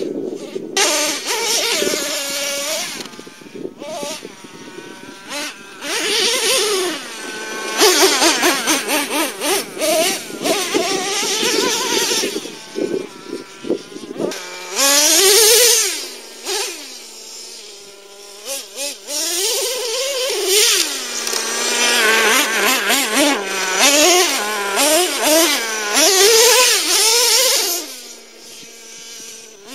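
Traxxas T-Maxx RC truck's modified 3.3 nitro engine with a drilled-out resonator pipe, revving and easing off over and over as the truck is driven, its high buzzing note rising and falling in pitch with each blip of throttle.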